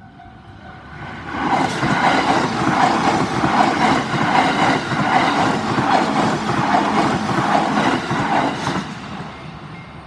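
JR East E353 series limited express train passing over a level crossing: its wheels clatter rhythmically over the rail joints, loud from about a second in until it fades away near the end. The crossing's warning bell rings as a steady tone before the train arrives.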